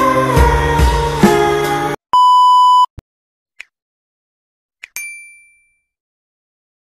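Background music cuts off abruptly about two seconds in. A loud, steady electronic beep follows, lasting under a second, then a few faint clicks and a single bright ding about five seconds in that rings and fades.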